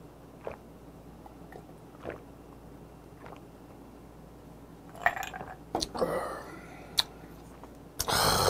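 A man drinking a whisky-and-cola highball from a glass mug, swallowing in quiet gulps every second or so. The drink ends in a few louder mouth and breath sounds and a sharp clink as the glass is set on the table, followed near the end by a loud breathy exhale.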